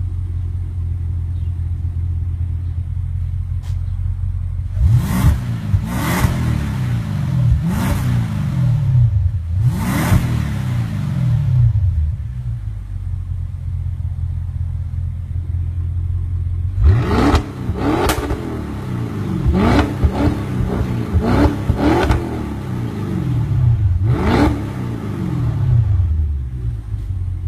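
Audi RS7's twin-turbo V8 breathing through an Armytrix aftermarket exhaust, idling low and steady and blipped on the throttle: four separate quick revs that fall straight back to idle, then after a pause a faster run of several revs before settling to idle again. Sharp cracks come from the exhaust at the top of several of the blips.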